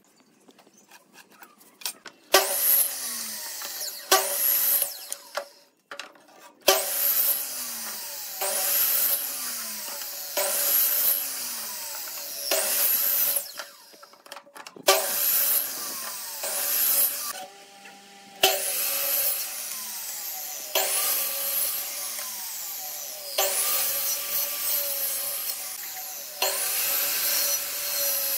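Electric compound miter saw cutting short blocks off wooden stock, about a dozen quick cuts one after another. The motor spins up for each cut and winds down between them. A few faint taps come before the first cut.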